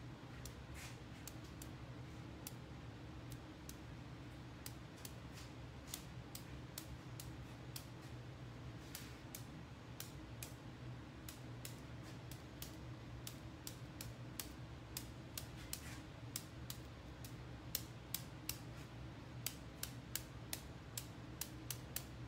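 Irregular sharp taps of a marbling brush being knocked to spatter paint drops onto the size in a marbling tank for a stone pattern. The taps come closer together near the end, over a steady low hum.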